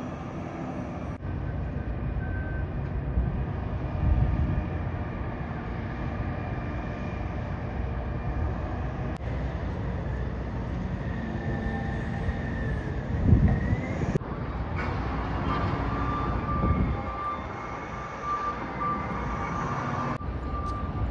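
Steady rumble of vehicle traffic, broken by several abrupt cuts. A high, even beeping joins in the last third.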